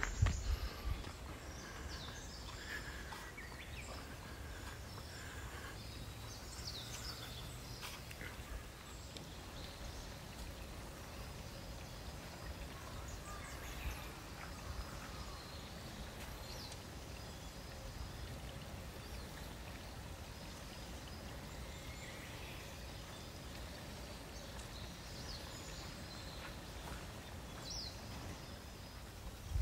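Faint outdoor ambience: a steady low rumble with a few short, high chirps scattered through it.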